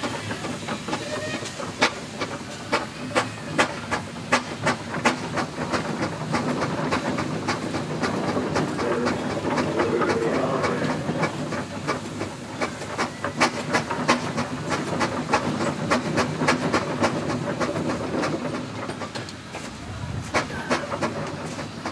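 Steam engine working a winch: a steady rush of steam, with runs of sharp clicks at about two or three a second in the first third and again past the middle.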